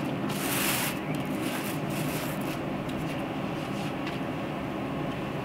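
Steady machine hum, like a fan or motor running, with a brief rustle about half a second in.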